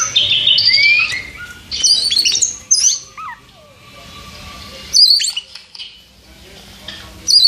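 Oriental magpie-robin (kacer) singing a rapid run of varied high whistles and chirps with quick slides in pitch. Loud, sharp calls come about five seconds in and again near the end.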